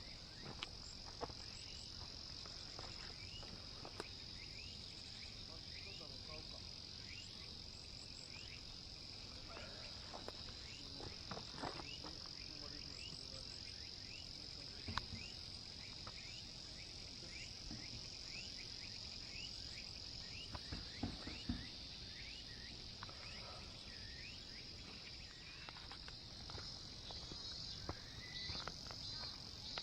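Faint, steady, high-pitched insect chorus with many short rising chirps, broken by a few scattered knocks and clicks.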